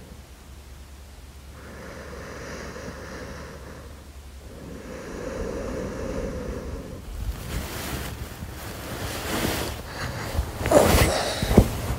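Slow, close-miked breathing of someone asleep, one long breath every few seconds. Near the end it gives way to a louder rush of noise with two sharp bumps.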